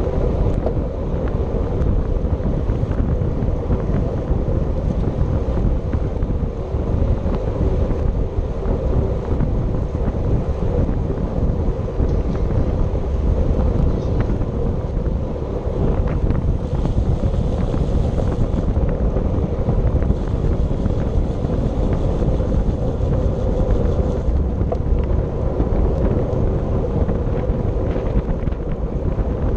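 Steady wind noise on the microphone of a camera riding along on a racing bicycle at speed, a continuous rushing with a low rumble underneath.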